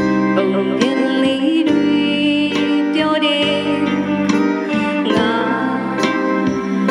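Music: electric guitar and electronic keyboard playing a song over a steady beat that falls a little faster than once a second.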